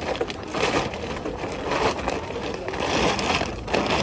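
Blue woven-polypropylene IKEA FRAKTA shopping bag rustling and crinkling as it is handled and opened, in irregular surges.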